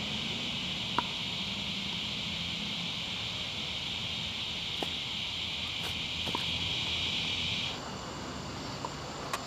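Steady evening chorus of insects, a continuous high buzzing that cuts off abruptly about three-quarters of the way through. A sharp click sounds about a second in, with a few fainter ticks later.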